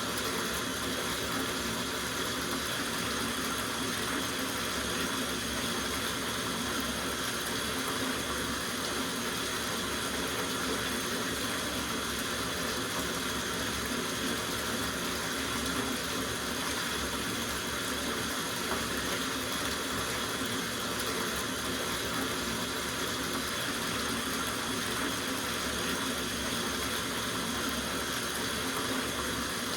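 Water running steadily from a tap into a soaking bathtub, an even unbroken rush.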